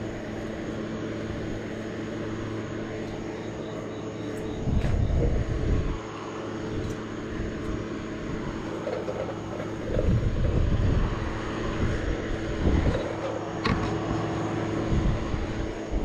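Air compressor running with a steady hum, with louder rubbing and thumping a few times from the fat bike tyre being handled on the wheel.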